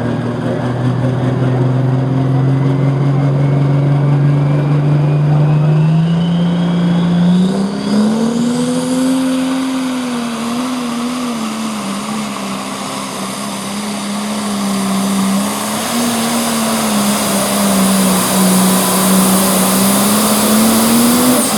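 Pro stock pulling tractor's turbocharged diesel engine at full power hauling the sled, with a high turbo whine rising over the first several seconds. The engine note climbs, then wavers and sags as the engine labors under the load, and picks up again near the end.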